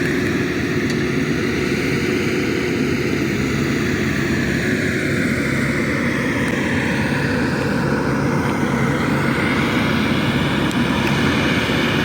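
Diesel engine of a JCB 3DX backhoe loader working as it loads mud: a steady heavy drone, with a higher whine that slowly rises and falls in pitch.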